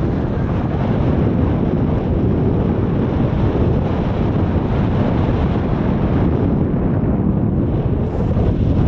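Airflow buffeting the camera's microphone during paraglider flight: a steady, loud rush of wind noise, heaviest in the low range.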